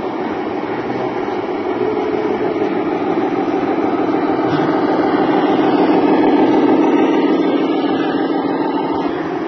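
Scale radio-controlled Scania truck with its trailer driving past, giving a steady diesel-engine running sound that swells as it comes close and eases off near the end.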